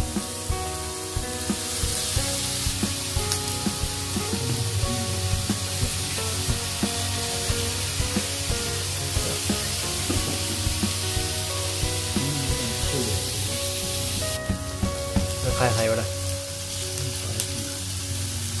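Beef, pork and gyoza sizzling on an electric tabletop hot plate, a steady hiss that thins about three-quarters of the way through, under a background music track.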